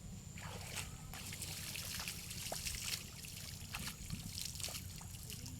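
Water splashing and trickling in a quick run of small splashes and drips.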